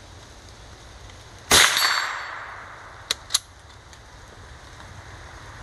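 A single shot from a Keystone Crickett .22 LR single-shot rifle: one sharp crack with a tail that dies away over about a second. About a second and a half later come two short sharp clicks in quick succession.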